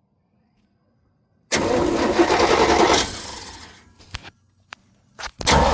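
Chevrolet K1500 pickup's starter motor cranking in short bursts: a loud two-second burst about a second and a half in that tails off, a few clicks, then another short burst near the end. The starter's back terminal has worked loose, so it makes a poor connection and sparks, and the truck does not start.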